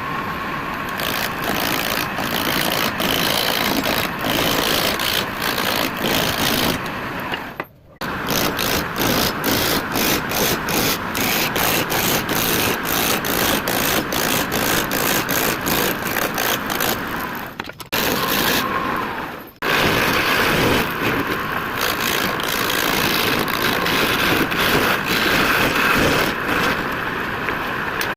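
Wood lathe running with a tool cutting the spinning wood, a dense rasping noise with rapid repeated knocks, stopping briefly a few times.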